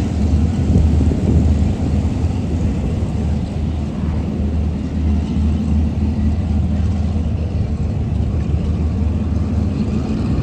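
Lockheed P-38 Lightning's twin Allison V-12 piston engines running with a steady low drone.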